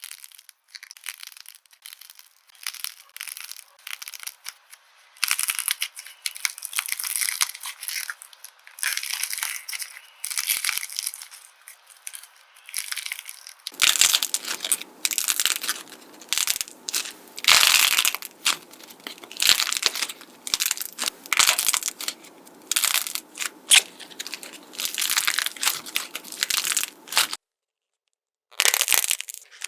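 Slime being squeezed, pressed and stretched close to the microphone, making dense crackling, crinkling and popping sounds. About halfway through it turns fuller and louder. It stops for a moment near the end, then starts again.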